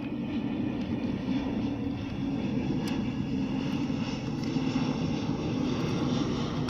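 A steady, unbroken mechanical drone, like a small motor or engine running, with one faint click about three seconds in.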